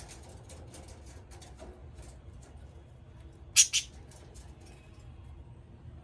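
Pet budgies in their cage: a run of small clicks and scratches, with two sharp, loud high-pitched calls in quick succession a little past halfway.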